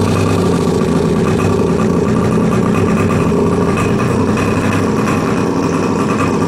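A pocket bike's small two-stroke engine idling steadily on a stand with a freshly fitted 13 mm carburettor, running decently.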